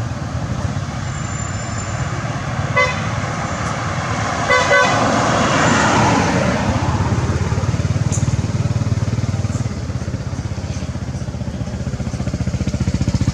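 A motorbike engine runs close by throughout. A vehicle horn gives a short toot about three seconds in and a quick double toot about five seconds in, and the traffic noise swells briefly as a vehicle passes.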